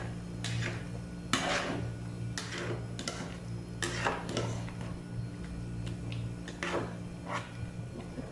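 A stirring spoon scraping and knocking against a stainless steel cooking pot as a stew is mixed, in irregular strokes over a steady low hum.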